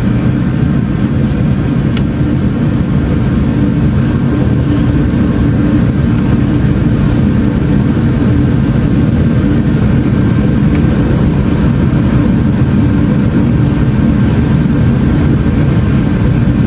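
Steady low rumble of an idling car engine, even in level throughout.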